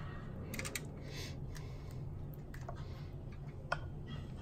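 Faint scattered ticks and soft rustles of a silicone basting brush working barbecue sauce onto ribs in a foil-lined pan, with one sharper click near the end, over a low steady hum.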